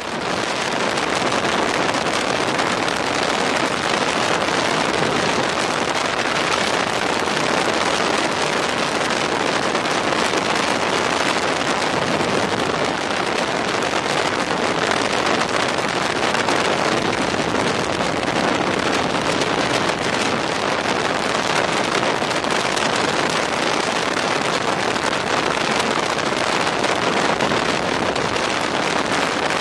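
Steady rush of wind over the microphone on a moving motorcycle at road speed, the engine not standing out from it.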